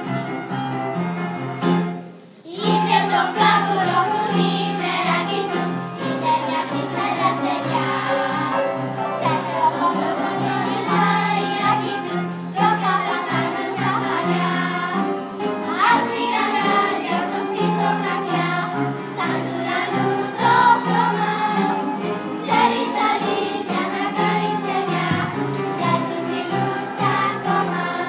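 Children's choir singing a Greek song over instrumental accompaniment, with a brief break in the sound about two seconds in.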